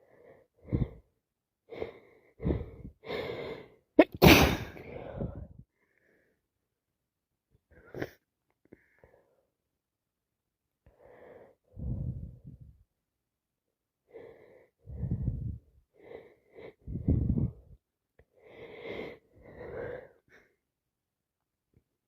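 A person with a cold and allergies sneezing over and over: about a dozen short bursts in clusters, with shorter breaths between, the loudest sneeze about four seconds in.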